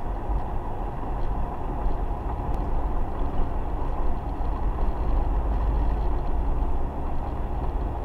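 Steady road and engine noise of a car driving, heard from inside the cabin: a continuous low rumble.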